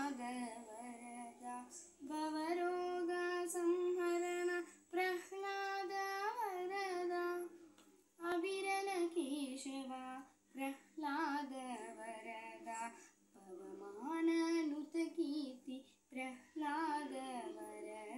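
A girl singing solo without accompaniment, in phrases of long held notes that bend and waver in pitch, with short breaths between them.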